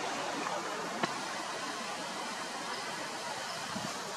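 Steady even hiss of background noise with no clear tone, and a single faint click about a second in.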